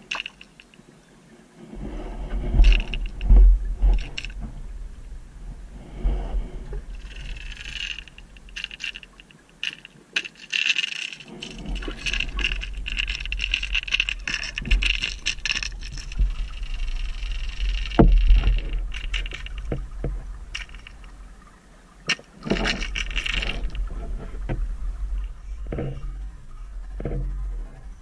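Sound picked up by a camera under water: a deep rumble of water moving against the housing that drops away twice, with scattered clicks, knocks and a hissy rush of water.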